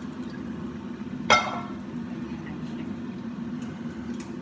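A single sharp clink of kitchenware, ringing briefly, about a second in, over a steady low hum.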